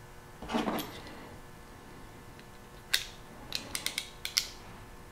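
Ratcheting crimping tool crimping a male spade terminal onto a wire: one sharp click, then a quick run of ratchet clicks over about a second as the jaws close on the terminal. A short rustle of handling comes about half a second in.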